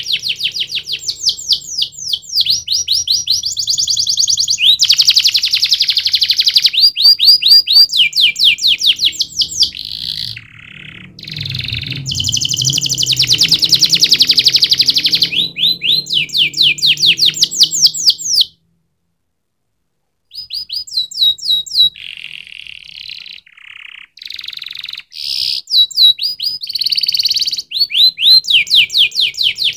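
Domestic canary singing: fast runs of repeated high sweeping notes and trills, one tour after another, with a break of about two seconds of silence about two-thirds of the way through.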